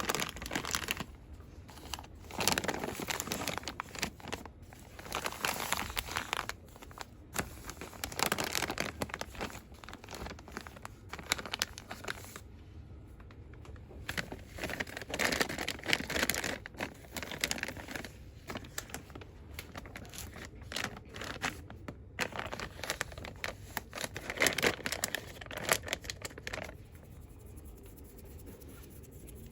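Fast, aggressive crinkling and rustling of cosmetic and soap packaging, handled in bursts of a second or two with short pauses, and a quieter stretch near the end.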